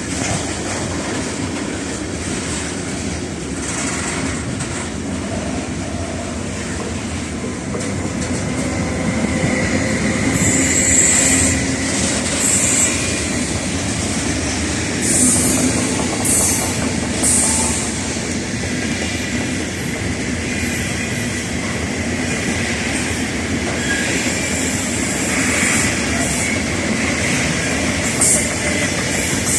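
Container freight train rolling past: a steady rumble of wagon wheels with clickety-clack over the rail joints and several short bursts of high-pitched wheel squeal, bunched in the middle and once more near the end.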